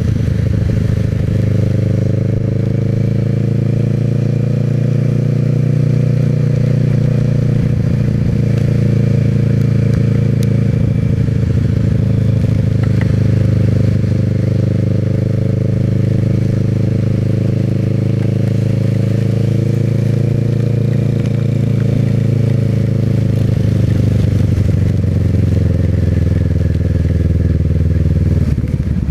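Motorcycle engine running steadily under way, its pitch drifting slowly and easing down a little near the end.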